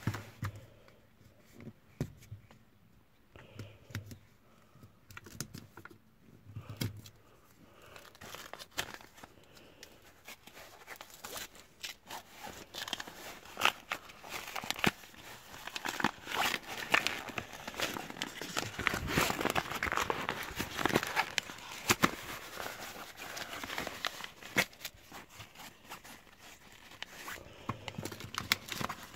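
Paper envelope of a greeting card being torn open and crinkled: a few scattered rustles and clicks at first, then a long stretch of dense tearing and crumpling, loudest a little past halfway.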